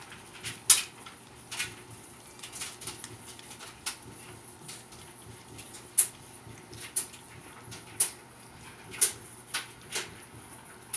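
Two cats eating dry kibble from food bowls: irregular sharp crunching clicks, roughly one a second.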